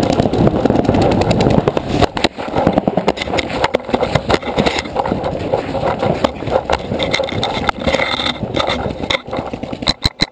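Continuous rough rumbling and rattling noise from a paintball player moving with the camera on the marker, with many sharp pops of paintball markers firing scattered through it.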